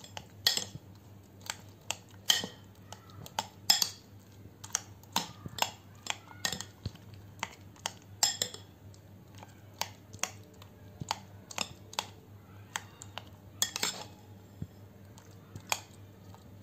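Metal spoon clinking and scraping against a glass bowl while mashing soft roasted eggplant, in irregular sharp clicks about one or two a second.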